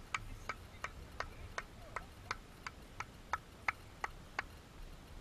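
Steady, even hand clapping, about three sharp claps a second, stopping near the end.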